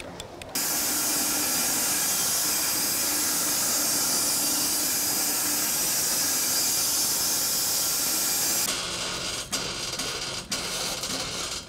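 Portable bandsaw sawmill cutting through a log: a steady, loud hiss of the blade in the wood over a low hum, cutting in and out abruptly. A few sharp knocks follow near the end.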